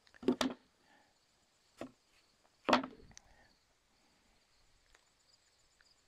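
Thin wooden shingles clacking against each other and the wooden jig as they are handled and set down: a quick double clack, a light tap, then one loud clack near the middle and a faint click after it.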